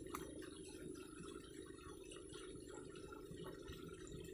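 Faint trickling water in a concrete drainage ditch, with small irregular ticks over a low steady hum.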